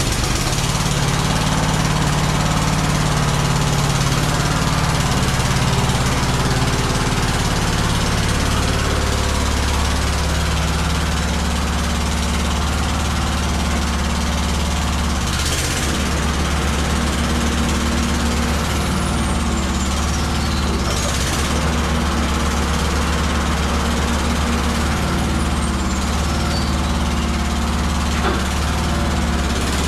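Toro riding mower's engine running steadily, test-run after a new mower deck belt has been fitted.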